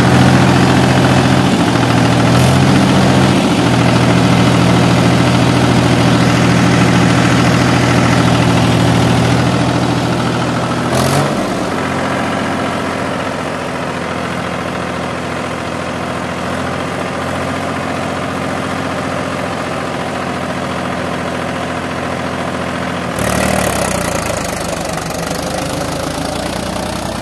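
Mahindra 265 DI XP Plus tractor's three-cylinder diesel engine running steadily at about 1700 RPM, pulling a nine-tine cultivator in fourth low gear. The engine sound drops in level about eleven seconds in and shifts again near the end.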